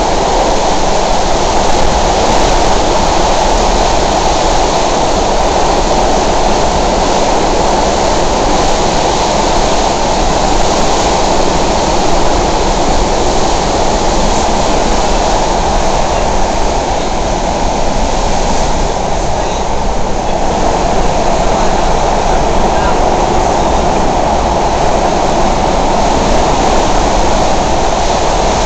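SEPTA Broad Street Line subway car running at speed through the tunnel, heard from inside the car: a loud, steady rumble and rattle of wheels on rails that eases slightly about two-thirds of the way through.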